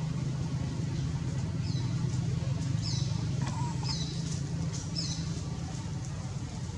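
Short high-pitched chirps, each dipping then levelling off, repeating about once a second over a steady low hum.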